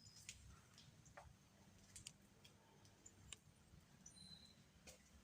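Near silence with a few faint, scattered clicks and ticks over a low hum.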